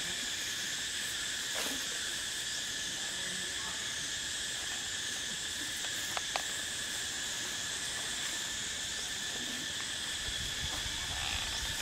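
Steady chorus of insects: a continuous high-pitched drone at several pitches, unbroken throughout, with a couple of small clicks about six seconds in.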